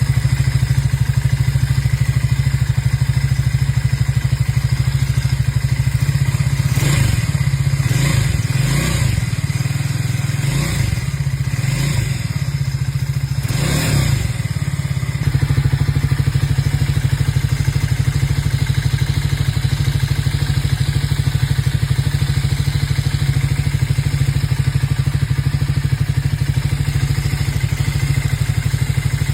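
Triumph Speed 400's single-cylinder engine idling steadily, blipped through about six quick revs partway through before settling back to idle. The engine noise problem is said to be resolved.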